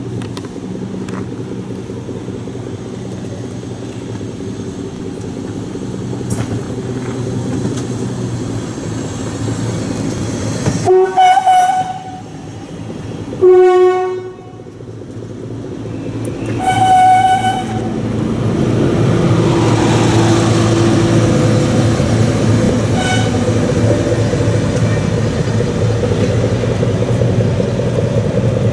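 SNCF X 2800 diesel railcar running into a station and passing close by, its engine and running gear growing louder as it comes alongside. About halfway through its horn sounds three short blasts, the middle one a lower note and the last a higher one.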